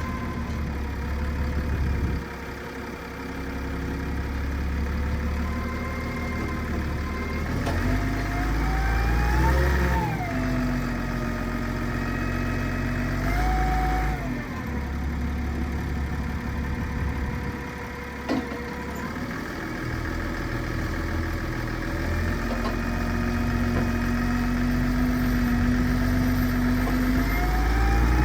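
Wheel loader's engine running under working load, revving up and dropping back several times, with a steady whine that comes and goes.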